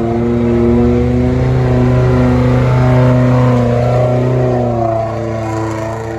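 Off-road 4x4 vehicle's engine revving under load, its pitch rising and falling, then easing off about five seconds in.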